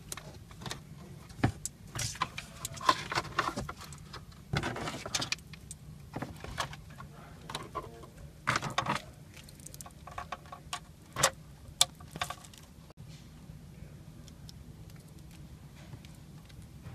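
Plastic wiring-harness connectors and loose wires being handled: scattered clicks and small rattles with short bursts of rustling, thinning out after about nine seconds.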